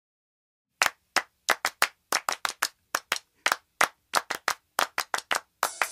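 Hand claps in an uneven rhythm, about four a second with some quick pairs, starting about a second in, opening a grindcore track; a sustained tone swells in just before the end as the band is about to come in.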